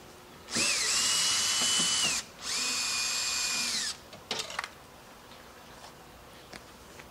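Cordless drill/driver run in two bursts of about a second and a half each, backing out the screws that hold the grinder's water tank. Each burst has a steady motor whine that climbs as it starts and falls away as it stops. A few light clicks follow.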